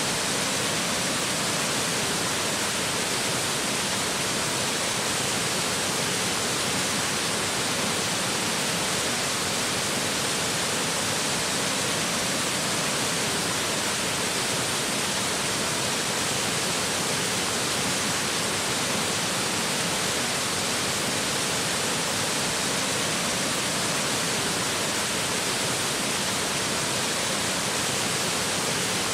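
Water of Powderhorn Falls, a waterfall, rushing in a steady, even hiss.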